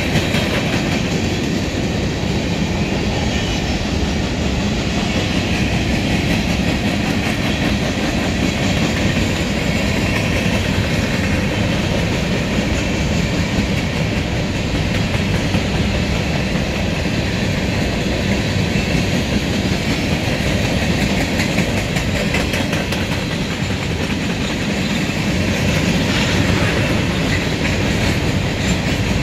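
Covered hopper cars of a freight grain train rolling past: steady wheel-on-rail noise with the clickety-clack of wheels passing over rail joints.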